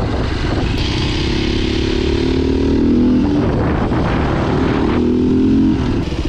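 Beta RR 450 four-stroke single-cylinder enduro dirt bike engine under throttle, pulling in two long stretches with a brief break around three seconds in, then easing off near the end.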